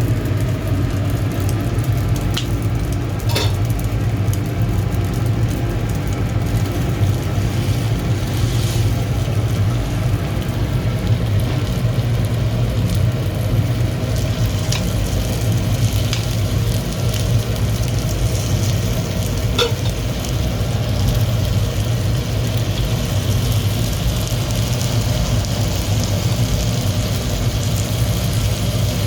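Chickens roasting over a wood-charcoal fire, sizzling and crackling with a few sharp ticks, over a steady low machine hum.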